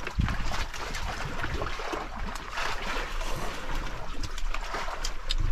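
Sea water sloshing and trickling against a boat's hull, with light clicks and scrapes of metal spoons on plastic plates.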